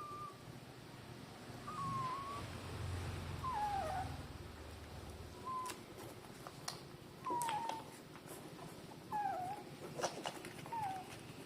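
Newborn puppies squeaking: about seven short, high squeaks, some dipping in pitch, roughly every two seconds. A few sharp clicks come in the second half.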